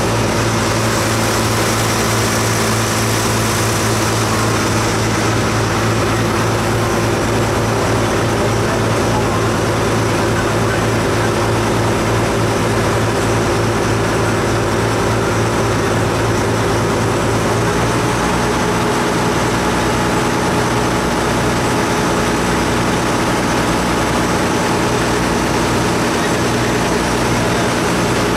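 A river ferry's engine running in a steady, loud drone, with a hiss of wind and water over it; its note shifts about two-thirds of the way through.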